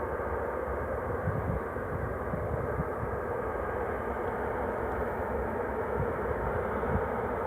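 Airliner jet engines at low taxi power as the plane rolls past, a steady rumble and hiss that grows slightly louder, with wind buffeting the microphone.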